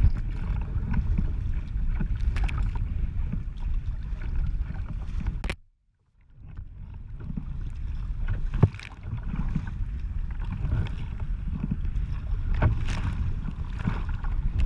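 Wind buffeting the microphone of a camera on a sea kayak's deck as the boat pitches through choppy waves, with water splashing against the hull and over the lens now and then. The sound cuts out abruptly for about half a second roughly a third of the way in.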